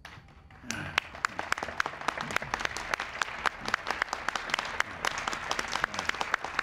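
Crowd applauding, starting about a second in, with single hand claps standing out sharply from the rest.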